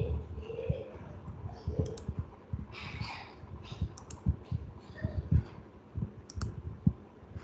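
Irregular light clicks and taps from a computer mouse and keyboard, a few every second.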